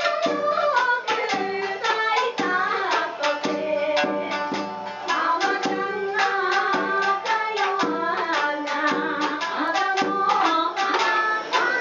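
Japanese folk song (min'yō): a woman singing a bending, ornamented melody over shamisen struck in a quick, steady rhythm.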